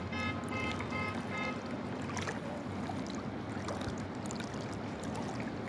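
Floodwater sloshing and swirling around someone wading through waist-deep water, an uneven watery rush. Faint background music with held notes sits over it, clearest in the first couple of seconds.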